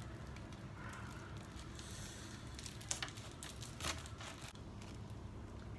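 Faint rustling of stiff pineapple crown leaves being handled and picked at, with a few sharp clicks around the middle, over a low steady background hum.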